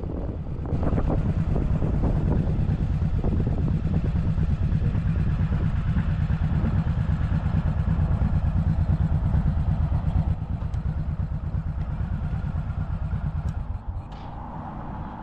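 An engine running close by, a steady low fast pulsing that stays even for most of the time and drops away about fourteen seconds in.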